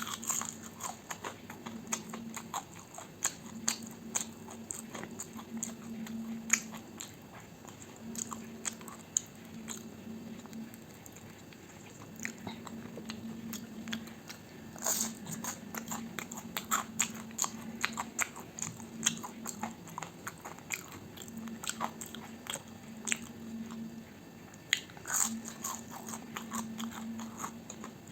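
Close-miked chewing and biting of fried breakfast food, with many quick wet mouth clicks and occasional louder crunches, the sharpest about 15 and 25 seconds in.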